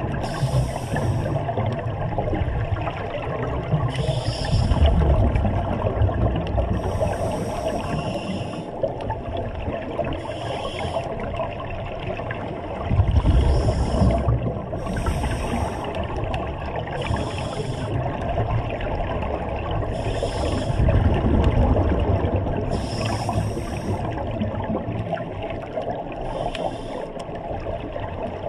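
Scuba regulator breathing underwater. Bursts of exhaled bubbles rumble and gurgle every several seconds, with short high hisses in between.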